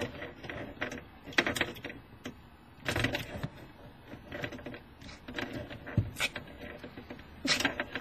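A girl's muffled, stifled laughter with scattered small clicks and rustles, coming in short irregular bursts.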